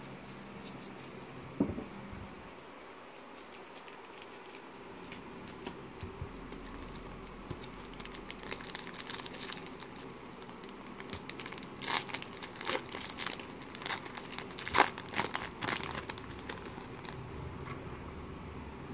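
Foil wrapper of a Panini Threads basketball card pack being handled and torn open: crinkling with sharp crackles that grow denser and louder in the second half. A single soft thump about a second and a half in.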